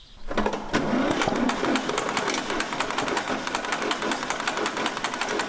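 John Deere B two-cylinder tractor engine catching about half a second in and running with rapid, uneven popping. The owner says it is not running right and needs its carburetor cleaned.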